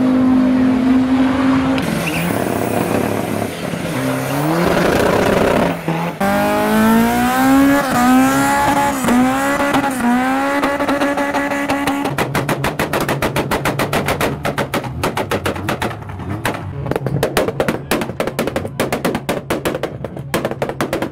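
Car engines revving hard during burnouts, the pitch climbing and dropping again and again, with tyre squeal and hiss. From about halfway through the revving stops and a fast, even clicking runs over a low steady hum.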